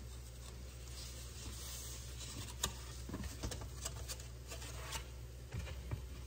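Eggs and bacon frying in a nonstick frying pan: a light sizzle with scattered pops and crackles of fat over a steady low hum.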